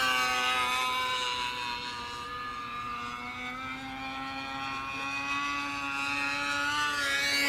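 Model airplane's small engine buzzing steadily in flight. It fades somewhat in the middle and grows louder again near the end as the plane comes back closer.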